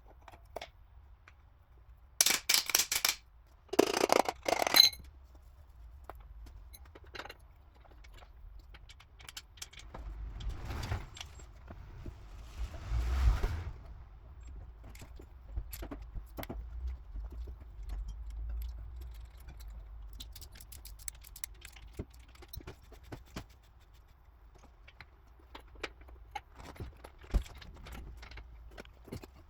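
Metal tools and engine parts clinking during engine assembly. There are two loud bursts of rapid metallic clicking about two and four seconds in, then scattered light clicks, knocks and scrapes.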